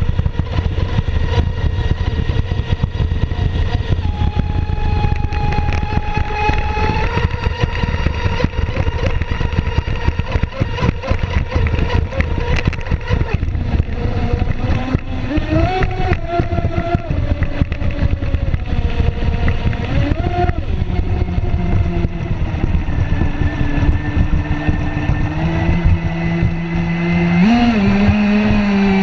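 Radio-controlled model boat's motor running with a steady whine whose pitch shifts up and down with the throttle, over the rush of water and wind against the boat.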